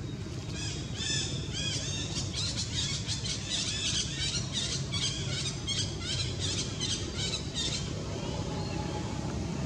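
Animal calls: a rapid series of short, high, squeaky rise-and-fall chirps, about three or four a second, that stop about eight seconds in, over a steady low rumble.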